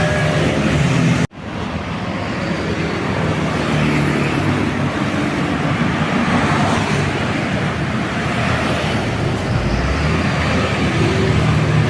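Road traffic with buses and other vehicles driving past: steady engine and tyre noise. The sound drops out abruptly for a moment about a second in, then picks up again.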